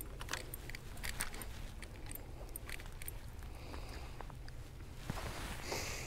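Wind rumbling on the microphone, with irregular small clicks and taps from fishing tackle. Near the end comes a brief hiss of water splashing as a fish is brought in.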